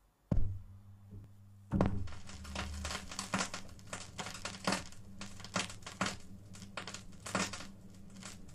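Turntable stylus dropped onto a spinning vinyl record with a sharp thump about a third of a second in, then a low mains hum. From about two seconds in, steady crackle and pops of the record's surface play as the needle runs through the lead-in groove before the music starts.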